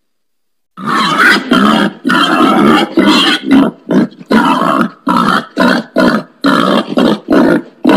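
Wild pig grunting: after almost a second of silence, a rapid run of short grunts, about two to three a second.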